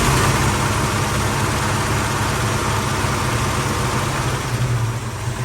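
Valiant VH Charger engine idling steadily after its warm-up, an engine still blowing smoke that the owner thinks needs a rebuild. The idle eases slightly near the end.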